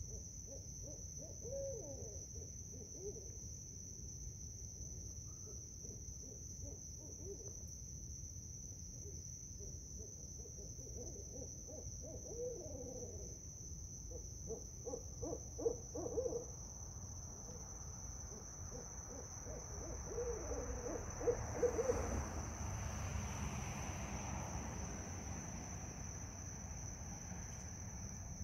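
Barred owls hooting at night, several separate calls with sliding notes and rapid runs of hoots, the loudest about two-thirds of the way in. A steady high insect trill sounds throughout.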